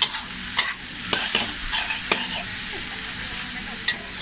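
Metal spatula scraping and clanking against a steel wok while pad thai noodles are stir-fried and tossed to mix, over a steady sizzle. Sharp clanks come at uneven intervals, the loudest right at the start.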